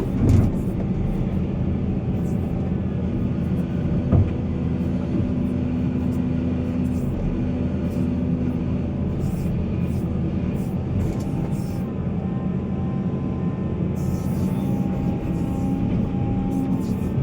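Heavy diesel mining machinery running steadily, a deep engine drone, with two sharp knocks: one at the start and one about four seconds in.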